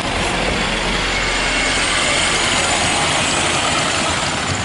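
Double-decker bus driving slowly past at close range and pulling away, its engine running steadily, loudest about halfway through.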